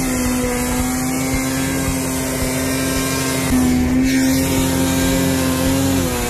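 Ski-Doo snowmobile engine running hard at high, steady revs as the sled carves through deep powder, its pitch holding level and stepping up slightly about halfway through.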